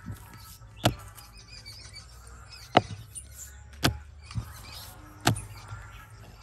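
About five separate light knocks and taps at uneven intervals: hands handling balls of dough on a tabletop.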